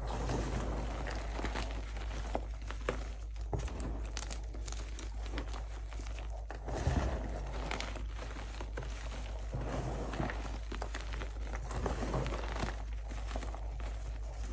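Dyed gym chalk, broken chunks and loose powder, being crushed and squeezed in bare hands: dense crunching and crackling with a soft powdery rustle. A louder crunch comes about seven seconds in.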